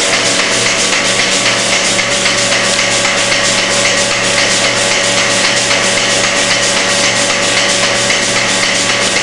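Dairy parlour milking machine running: a steady loud hiss of the vacuum system with rapid, even clicking from the pulsators working the milking units.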